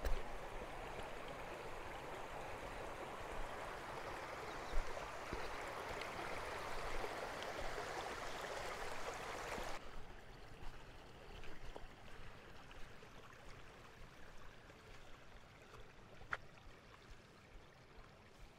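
Shallow stream babbling over stones and rocks. About ten seconds in, the water sound drops away abruptly to a much fainter hiss.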